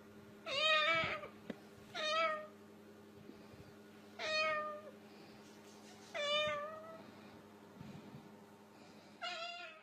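Cockatoo imitating a cat, giving five meows about two seconds apart.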